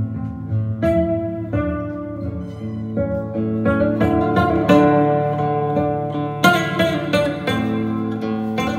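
Acoustic guitar music played back through a pair of SABA Green Cone full-range speakers in Bongo cabinets, driven by a 300B tube amplifier. Plucked notes ring and die away, with a strong struck chord past the middle.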